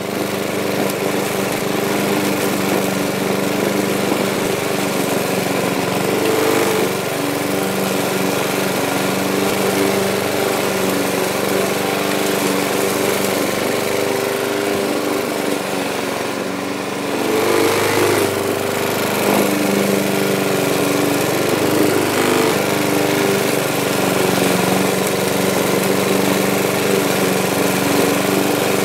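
Lawn mower engine running steadily, its note shifting briefly a little past halfway before it settles again.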